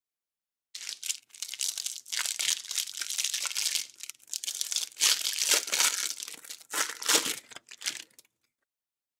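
Clear plastic cellophane wrapper of a baseball card pack crinkling and tearing as it is pulled off by hand, in uneven rustling spurts that start about a second in and stop shortly before the end.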